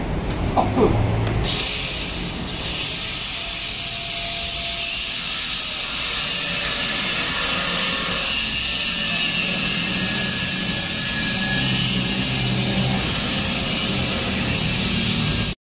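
A metalworking tool running against the steel sign bracket: a loud, steady, high-pitched hiss that starts about a second and a half in and cuts off suddenly near the end.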